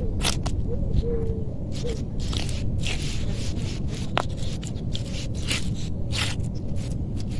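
A wooden stick stirring and scraping a mound of rice and cat food on a sheet of corrugated cardboard, in short irregular scrapes.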